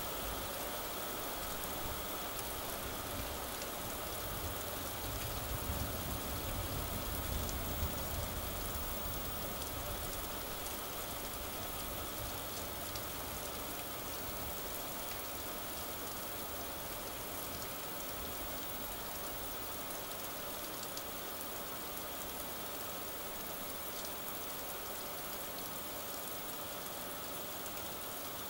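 Steady heavy rain falling, an even hiss of drops, with a low rumble swelling about five to eight seconds in.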